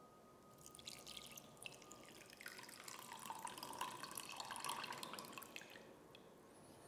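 Saffron-infused water poured from a small glass bowl into a larger glass bowl, a faint trickling splash. It starts about half a second in, is fullest in the middle and dies away near the end.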